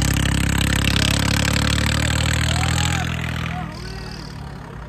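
A vehicle engine running at a steady pitch, loud with a rushing noise at first, easing off about three seconds in.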